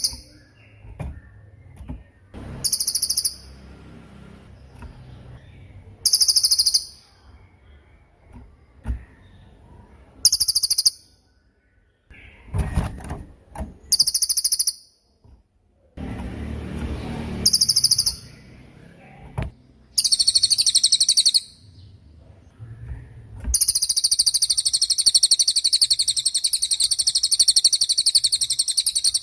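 Cililin songbird singing: short, very high, rapid trills about a second long, repeated every few seconds, running into one long unbroken trill about two-thirds of the way through. A low background rumble with a few dull knocks sits between the phrases.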